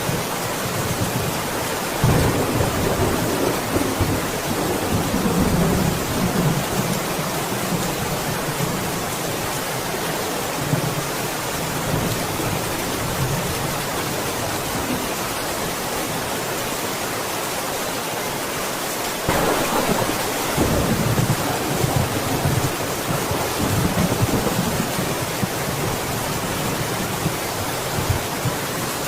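Steady heavy rain with thunder rumbling twice: one roll starts about two seconds in and fades over several seconds, and a second, sudden one breaks in around two-thirds of the way through.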